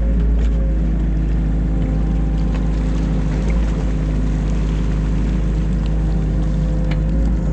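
New Holland Kobelco E50.2 mini excavator's diesel engine running at a steady speed, with a few faint clicks over it.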